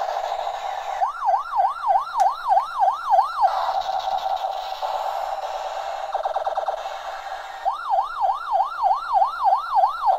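Electronic siren sound effect from a battery-operated toy police helicopter's small speaker: two runs of a fast wailing siren, about three sweeps a second, between stretches of a steady buzzing tone.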